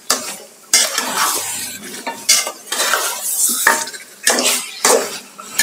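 Long metal spoon stirring and turning raw beef pieces in spice paste and oil in a metal pot, scraping and knocking against the pot in a run of irregular strokes, with the meat sizzling in the hot oil. This is the stage where the beef has just gone into the fried masala and is being turned to coat it.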